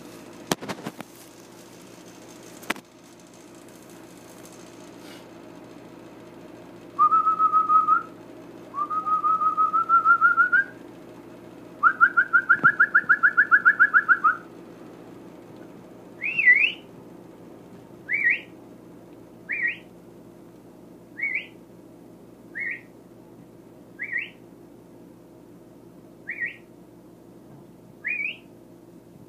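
A person whistling, most likely to the puppies. There are three held notes, the third with a fast warble, then a string of short rising whistles about every second and a half. A few handling clicks come in the first few seconds.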